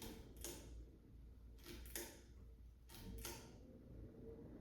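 Fasco Charleston ceiling fan running on high speed: a faint, steady motor hum with a soft tone, broken by a handful of light ticks, some in close pairs.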